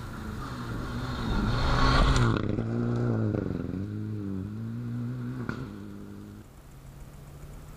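Rally car passing at speed: the sound swells to its loudest about two seconds in, then the engine note falls and rises several times as the revs change while it pulls away. There is a single sharp crack about five and a half seconds in, and the sound fades out near the end.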